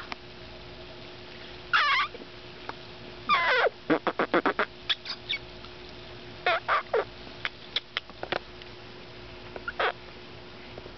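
Short, high animal calls at irregular intervals: a few wavering calls that sweep down in pitch, and a quick run of short chirps.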